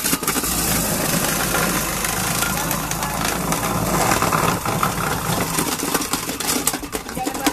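Electric ice shaver running and shaving a block of ice. A steady low motor hum, strongest in the first half, lies under a dense grinding noise full of small crackling clicks.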